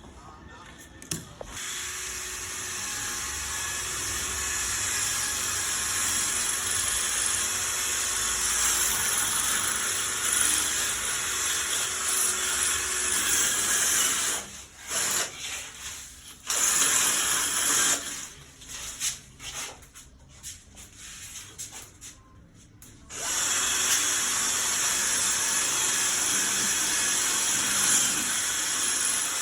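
A power tool running in long steady stretches, stopping twice for a few seconds before starting again.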